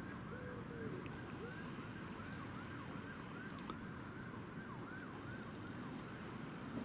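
A faint emergency-vehicle siren in a fast yelp, its pitch sweeping up and down about three times a second and fading near the end, over a steady low rumble.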